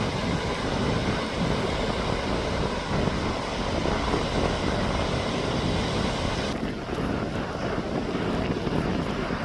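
Wind buffeting the microphone: a steady rushing rumble, heaviest in the low end.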